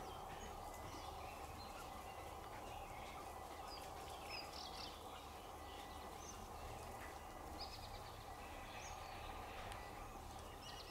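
Faint outdoor ambience: scattered short, high chirps and calls over a steady low hum.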